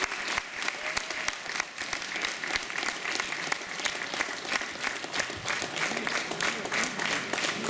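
Audience applauding: dense, continuous clapping from many hands.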